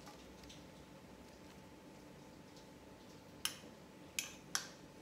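Quiet kitchen room tone, then three sharp clinks of a metal utensil against dishware in the last second and a half.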